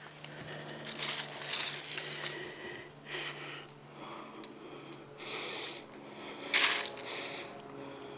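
Dry fallen leaves crunching and rustling underfoot and under handling, in a run of uneven bursts with the loudest about two-thirds of the way through, over a faint steady low hum.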